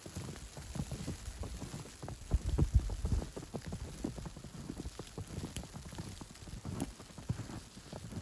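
Footsteps crunching in fresh snow, a steady run of short crunches, with a low buffeting rumble of wind on the microphone about two to three seconds in.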